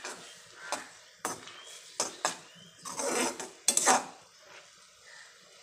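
A spoon clinking and scraping against a metal kadhai while stirring rose petals in water: a string of sharp knocks, busiest in the first four seconds, with a short scrape about three seconds in.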